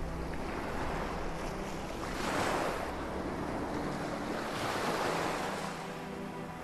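Sea surf washing in, with two surges of rushing water about two and a half and five seconds in, and wind buffeting the microphone.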